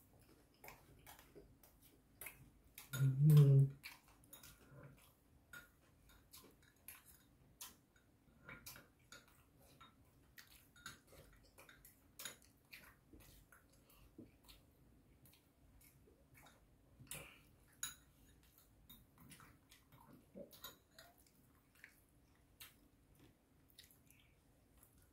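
Close-up eating sounds: chewing and mouth smacking, heard as a steady string of small wet clicks. About three seconds in comes one short, loud, low voiced sound from the eater.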